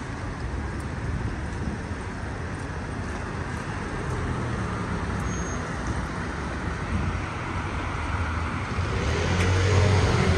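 Street traffic on a wet road: a steady hiss of tyres and engine rumble from passing cars, with a heavier vehicle's low rumble growing louder near the end.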